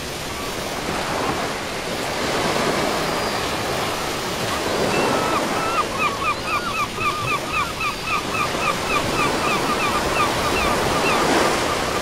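Small waves breaking and washing up a sandy beach, swelling and ebbing every few seconds. From about five seconds in, a gull calls in a rapid series of short repeated notes, about four a second, stopping shortly before the end.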